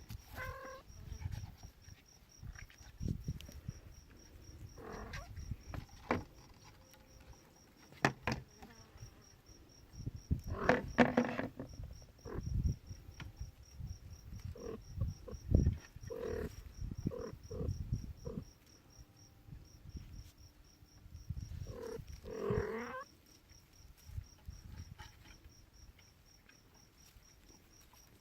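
Kittens mewing in short calls a few times, among soft thumps and rustling.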